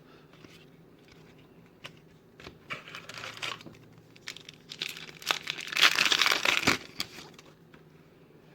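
Plastic trading-card pack wrapper crinkling as it is handled and crumpled. There are two bouts, the second and louder about six seconds in, with a few small clicks between.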